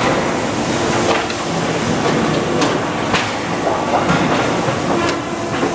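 Metal workshop din: a steady machine hum with about half a dozen sharp clanks and rattles of thin stainless steel sheet blanks being lifted and stacked.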